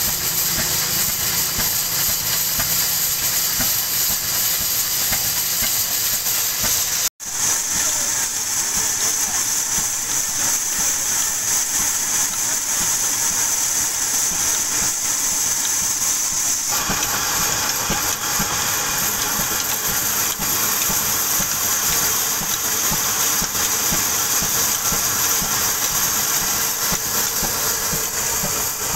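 Band saw mill's blade cutting through a log, a steady high hiss, with the diesel engine that drives it running underneath. The sound cuts out for an instant about seven seconds in, and grows fuller from about seventeen seconds in.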